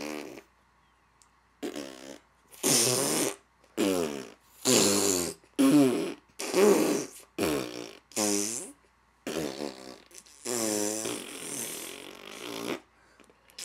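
A woman and a boy making fart noises with their mouths, blowing raspberries through pursed lips one after another. There are about a dozen short blasts, with a longer one of about two seconds near the end.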